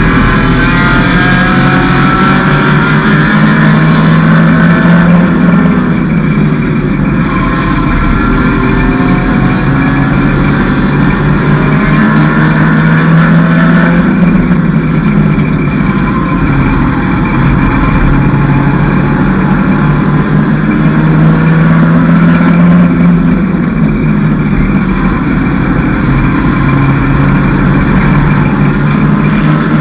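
Mini stock race car's engine heard from inside the cockpit, revving hard and easing off in a repeating cycle, its pitch rising and falling about every eight seconds as the car laps the oval.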